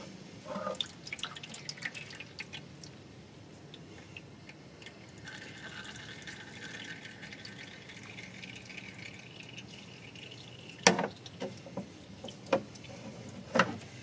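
Old automatic transmission fluid dripping and trickling from the open underside of the transmission into a drain pan, with scattered small taps and a few sharper knocks in the last few seconds.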